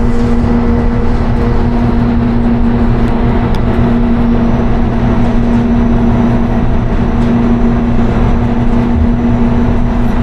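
Inside a 2018 Nova Bus LFS natural-gas transit bus with a Cummins ISL-G engine, driving at a steady speed: the engine drones with a constant hum over road and tyre rumble.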